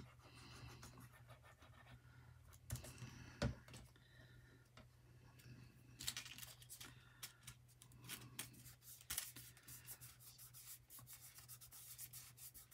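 Faint handling of paper on a cutting mat: scattered light taps and rubbing as a small glued paper piece is laid onto a painted paper tag and pressed down by hand.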